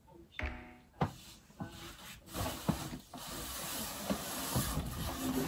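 Things being handled and packed on a table: a run of irregular knocks and clunks, with a steady rustling hiss from about two seconds in.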